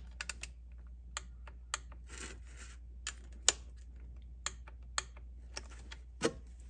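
Torque wrench ratcheting and clicking on the thermostat housing bolts as they are rechecked at 108 inch-pounds: irregular sharp clicks, the loudest about halfway through and another strong one near the end.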